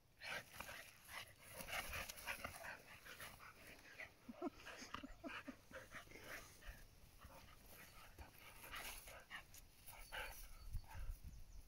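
Two Keeshonds playing, panting and scuffling, with a few short vocal sounds from the dogs about four to five seconds in.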